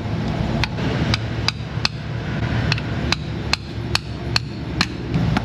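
About ten light hammer taps at an uneven pace on a 3/8-inch socket extension used as a drift, driving a new rear main seal into the engine block around the crankshaft. Each tap is a short metallic strike as the seal is worked around to seat it straight.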